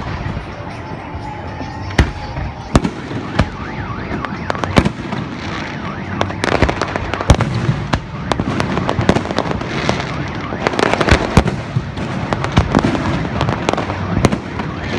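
Display fireworks bursting overhead: a run of sharp bangs over continuous crackling, the bangs coming thicker and faster from about six seconds in.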